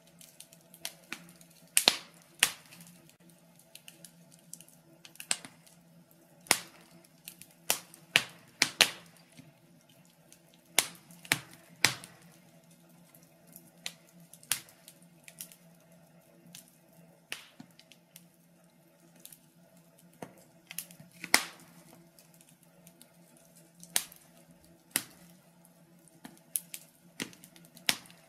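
Wood fire crackling in a stove: sharp, irregular pops and snaps, roughly one or two a second, over a steady low hum.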